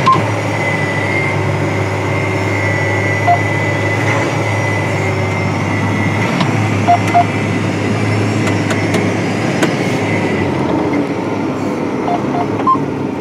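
Heavy farm machinery running steadily, heard from inside the cab: a constant low engine drone with a high whine over it that fades out about ten seconds in, and a few short electronic beeps scattered through.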